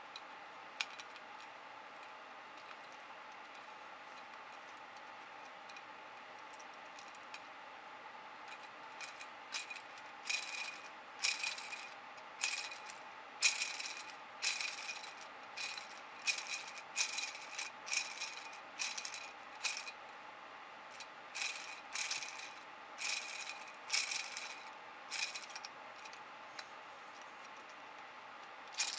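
Small 3D-printed plastic spur gears of 0.8 module, a large gear meshing with a small pinion, turned by hand. The teeth rattle and click in short bursts about once a second, starting about a third of the way in.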